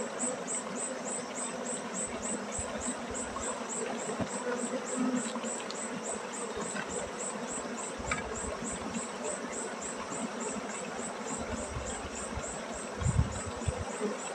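Honey bees buzzing around an opened log hive, with a high insect chirp repeating steadily about four times a second above the hum. A few low thumps near the end are the loudest sounds.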